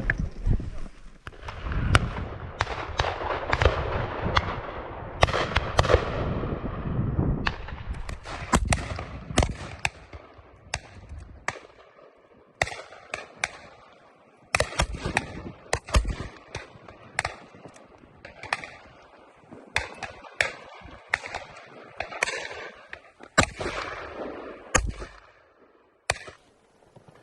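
Shotguns firing again and again along the line of a driven game shoot: dozens of shots at irregular intervals, some loud and close, many fainter and distant. A steady rushing noise lies under the shots for the first several seconds.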